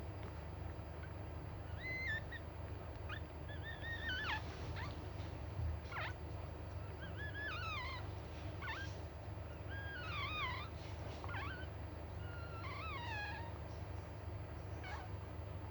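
Newborn puppy squealing: a string of about ten short, high-pitched squeaks and whines, some bending up and down in pitch, over a steady low hum.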